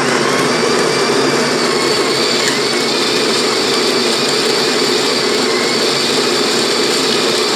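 Built-in coffee grinder of a Getra SN-3035S espresso machine grinding beans: a loud, steady whir that starts suddenly and cuts off after about seven and a half seconds, the grind time set on the machine.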